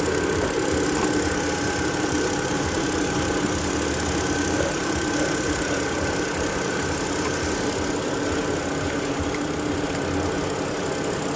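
BMW 528i's N52 straight-six engine idling steadily after a new alternator has been fitted, running while the charging is checked. A faint steady whine over it fades out about nine seconds in.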